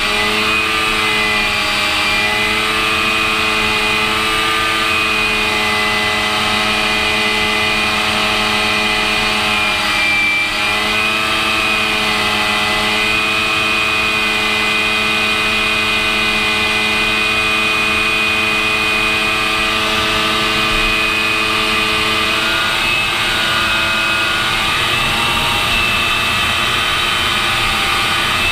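Cockpit noise of an AV-8B Harrier II Plus in flight: the Pegasus turbofan's loud steady drone and rushing air, with several whining tones that shift slightly in pitch about ten seconds in. Near the end the lower tones fade and the sound changes.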